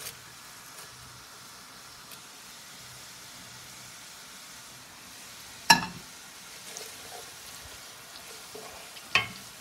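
Sliced onions and whole spices sizzling steadily in hot oil in an aluminium pot as they fry toward dark brown, with two sharp knocks, one a little before six seconds in and one about nine seconds in.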